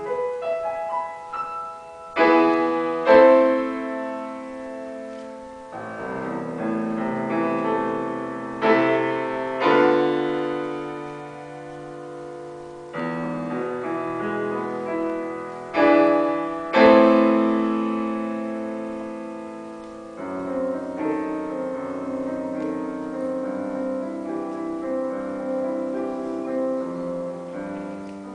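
Bösendorfer grand piano played solo. Loud struck chords ring out and fade several times, then a softer passage of quicker notes follows in the last third.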